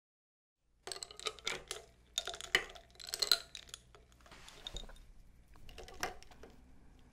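Ice cubes clinking against a drinking glass as a straw is pushed into iced milk tea and stirred. A quick run of sharp clinks for about three seconds, then a softer stirring rustle, and one more clink about six seconds in.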